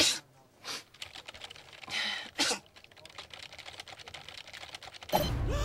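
Computer keyboard typing, heard as faint quick clicks, broken in the first few seconds by a few short vocal noises from a woman. Music and a man's voice come in loudly near the end.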